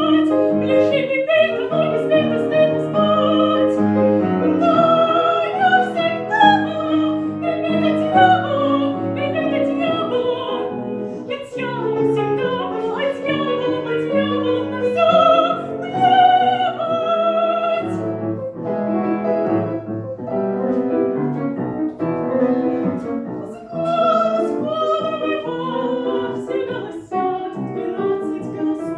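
A teenage girl's classically trained voice singing an operetta aria with vibrato on the held notes, accompanied by piano.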